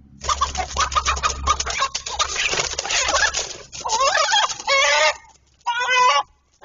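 Chickens squawking in alarm amid wing-flapping and scuffling as a rooster fights off a hawk attacking a hen. A dense stretch of harsh, rapid squawks comes first, then a few loud, drawn-out calls about four and six seconds in.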